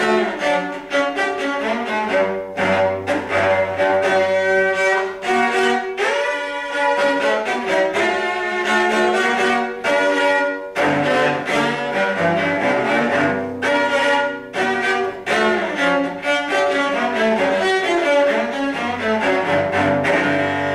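Solo cello played with the bow in a rock-style arrangement: quick, rhythmic strokes with several notes often sounding together over low held notes.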